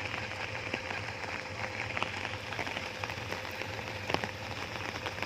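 Suzuki Jimny's swapped-in carburetted Vitara engine idling with a low steady hum, under an even hiss scattered with small sharp ticks.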